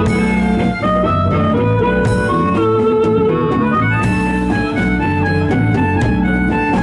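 Live blues band playing: a harmonica solo over guitar and drums, with a long held note about halfway through.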